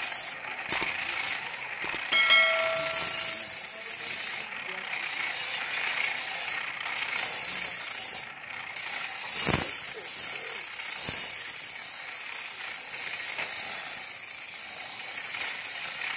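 Bolo blade being ground on a pedal-driven grinding wheel: a steady hissing scrape that breaks off briefly several times as the blade is lifted and set back on the wheel. A short steady tone sounds about two seconds in, and there are a couple of knocks past the halfway point.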